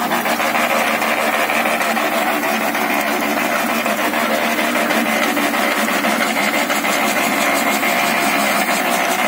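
Paddy grain dryer running: a steady mechanical drone with a fast, even pulsing and a faint high whine.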